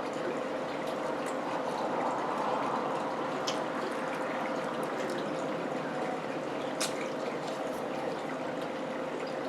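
Steady background hiss with a faint constant hum, and a couple of faint clicks about three and a half and seven seconds in.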